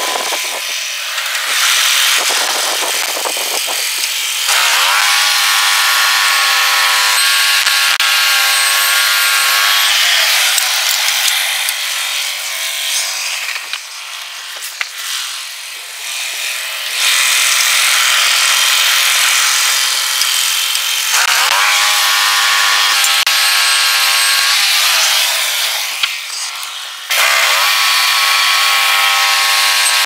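Norwood LumberPro HD36 portable bandsaw mill running, its engine driving the band blade through an elm log. The engine note drops back several times and revs up again each time.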